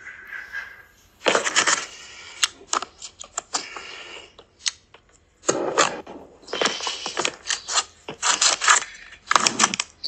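Hands working at an apartment door and its doorbell camera: uneven bursts of clattering, scraping and knocking against the door, growing busier in the second half.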